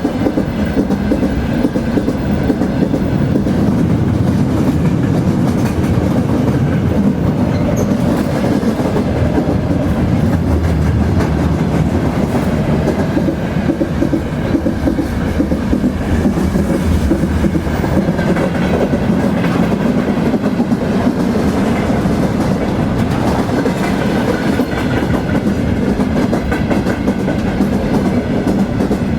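Train rolling along the track: a steady, loud rumble with many small clicks of the wheels running over the rails.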